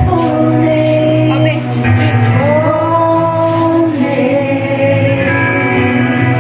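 Worship song playing: a sung melody of long held and gliding notes over a steady instrumental accompaniment.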